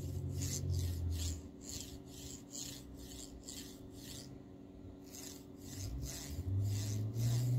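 Formbot MGN9H miniature linear rail carriage slid back and forth by hand under side load, giving a gritty rasping in repeated strokes about three a second, with a short pause near the middle. The noise comes from the block's recirculating balls and appears only when load is put on one side of the block, a fault the owner cannot identify.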